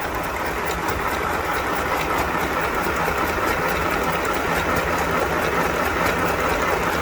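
Fanghua 505A household sewing machine running steadily, its motor hum laced with rapid, even needle ticking as it stitches a pattern on paper. This is a test run after its rotary hook was repositioned to cure a failure to pick up the bobbin thread.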